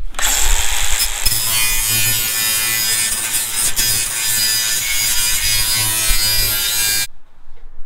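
Cordless angle grinder running with an abrasive disc pressed against the edge of a corrugated steel roofing panel, a steady whine with grinding hiss that cuts off suddenly about seven seconds in.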